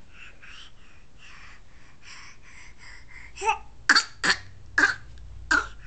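Baby laughing with a laugh that sounds like a cough: soft babbling, then five short, sharp cough-like bursts about half a second apart in the second half.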